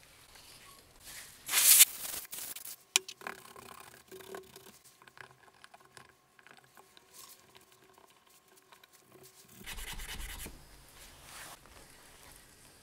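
Gloved hands handling an HP laptop's detached display panel. There is a loud rubbing scrape about a second and a half in as the panel is turned over on the cloth pad, and a sharp click a second later. After that come small clicks as the metal hinges are handled, and a second rubbing sound near ten seconds in.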